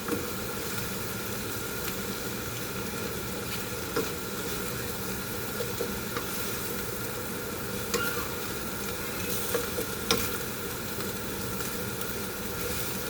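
Bitter gourd and egg sizzling in hot oil in a pan while being stirred, with a few scattered clicks of the utensil against the pan.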